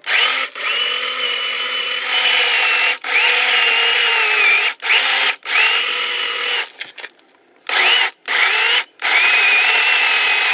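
Small electric motor, like a cordless drill, run in a series of trigger bursts about eight times. Each burst spins up with a quick rising whine to a steady high pitch, then cuts off abruptly.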